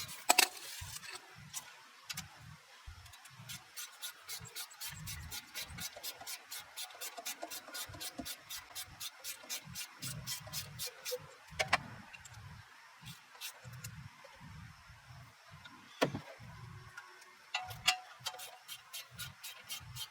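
Ratchet wrench clicking in long, quick, even runs while the front brake caliper bolts are turned out, broken by a few sharp metal clanks of tools, the loudest just after the start.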